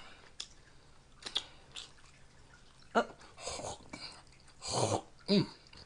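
Close-miked eating and drinking mouth sounds: a few small clicks, then a short breathy, slurping stretch, with a stronger breathy burst near the end followed by a brief falling vocal grunt.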